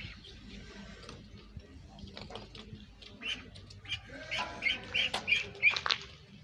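Young white domestic duckling peeping: a couple of short high calls about three seconds in, then a quick run of about six peeps a second later.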